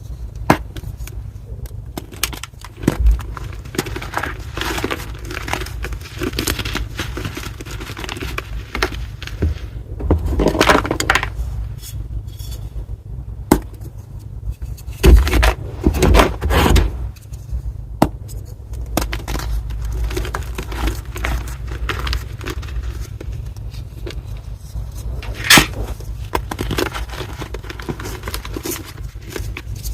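Reformed gym chalk block being crushed and crumbled: gritty crunching and crackling with scattered sharp snaps, heavier crunching bursts around ten seconds in and again around fifteen to seventeen seconds in.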